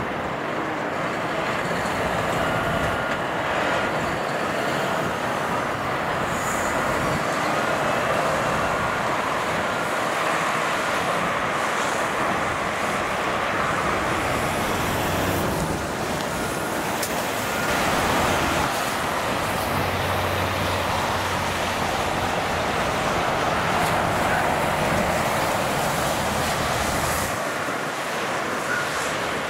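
Continuous motorway traffic noise: the tyres and engines of cars and trucks passing in a steady stream, swelling and easing as vehicles go by. A truck's low engine hum stands out for a few seconds past the middle.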